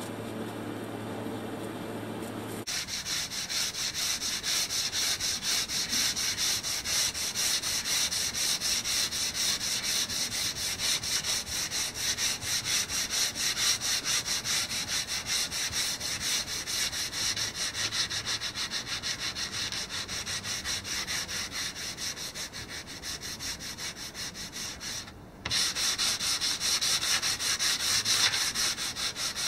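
Sandpaper rubbed by hand over spot putty on a motorhome's painted side, in quick, even back-and-forth strokes, with a brief pause near the end. A steady hum fills the first few seconds before the sanding starts abruptly.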